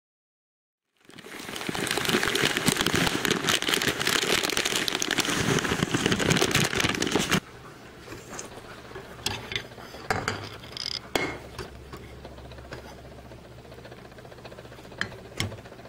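A dense crackling rustle starts about a second in and cuts off abruptly after about six seconds. It is followed by a low steady hum with a few soft knocks and ticks as sticks of butter are dropped into powdered sugar in a stainless-steel bowl.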